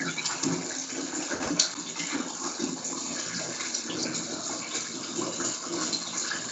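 Water running from a tap into a bathtub, a steady rush of water as the tub fills.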